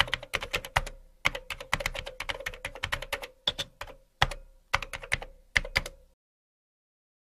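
Typing on a computer keyboard: rapid runs of keystrokes broken by short pauses, stopping about six seconds in.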